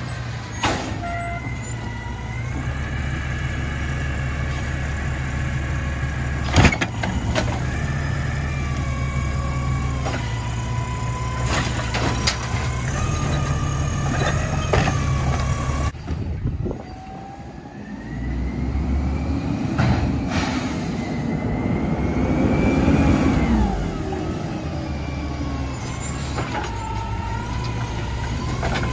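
Mack automated side-loader garbage truck running on natural gas, its hydraulic arm whining up and down in pitch as it grabs, lifts and tips a trash cart into the hopper, with several sharp clanks of cart and arm against the body.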